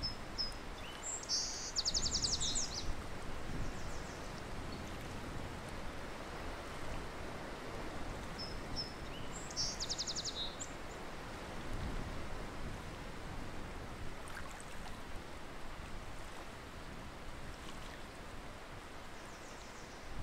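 A small songbird's high, rapid trill, heard twice: about a second in and again around nine seconds in, over a steady rushing background noise.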